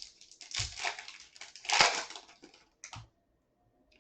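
Trading-card pack wrapper crinkling and tearing as it is opened, loudest about two seconds in. A short sharp tap follows about three seconds in.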